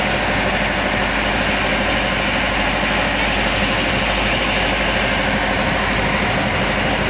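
Motorized outrigger boat (bangka) under way: the steady drone of its engine over the rush and splash of water along the hull and outrigger floats.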